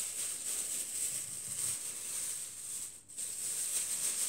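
Thin plastic bag rustling and crinkling as it is pulled over the hair and tucked in around the head, with a brief lull about three seconds in.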